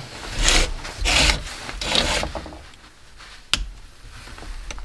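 Hard plastic parts scraping and rubbing as a small mechanism is forced apart by hand to get its plastic wheels off: three rough scraping strokes, then a sharp click about three and a half seconds in and another near the end.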